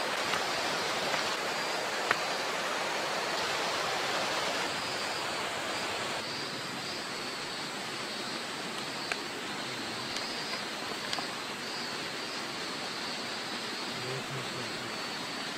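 Steady rushing of river water, an even continuous noise with a couple of faint clicks.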